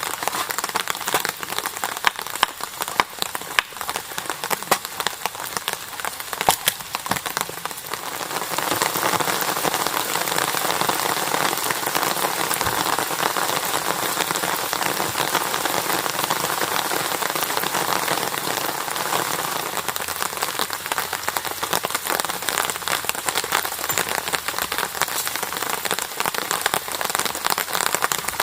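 Rain falling hard, a dense patter of drops that thickens into a heavier, steadier downpour about eight seconds in.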